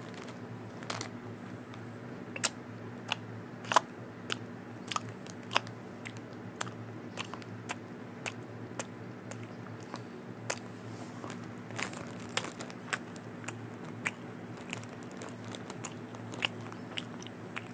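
Irregular sharp clicks and crackles of a clear plastic food container being pressed and tapped by a plush toy, about one or two a second, over a steady low hum.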